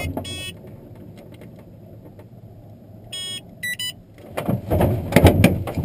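Glider rolling out on a grass runway after landing: a low rumble from the wheel and airframe, with a few short electronic beeps. Louder bumps and rattles come in over the last second and a half.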